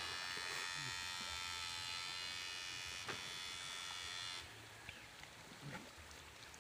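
High-pitched electronic whine of a Susan 1030 electrofishing unit switched on, steady with many overtones, cutting off suddenly about four and a half seconds in. A faint click comes near the middle.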